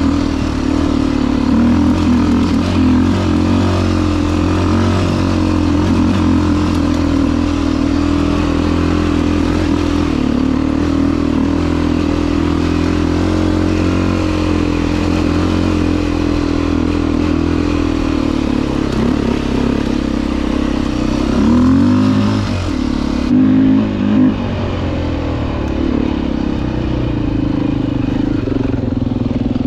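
Single-cylinder four-stroke dirt bike engine running under way on a trail, its note rising and falling a little with the throttle, with a couple of short revs about three quarters of the way through.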